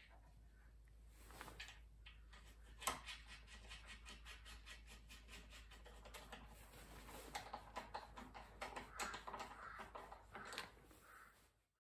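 Ratchet wrench clicking in quick, even strokes while tightening a bolt on a car steering rack's mounting, with one sharper metal clink about three seconds in.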